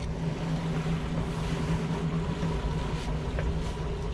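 Twin outboard motors running steadily at slow trolling speed, a constant low hum, mixed with wind and water noise.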